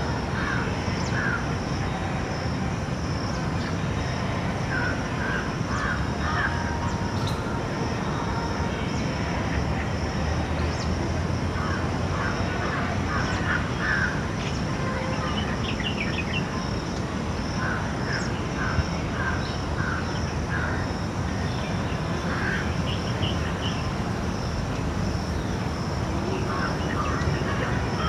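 Birds calling in short, harsh notes, in groups of three to five every few seconds, over a steady high buzz and a constant low rumble.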